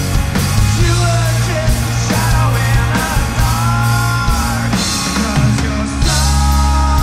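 Rock band playing live: drums, bass and electric guitars with a steady beat.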